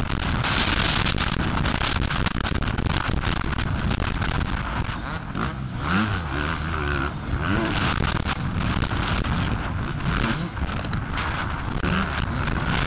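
Two-stroke Suzuki RM250 motocross bike engine running hard at race pace, heard from an onboard camera with heavy wind buffeting and gritty crackle on the microphone, and other motocross bikes close by. The engine pitch wavers up and down around the middle as the bike slows through a turn and accelerates out.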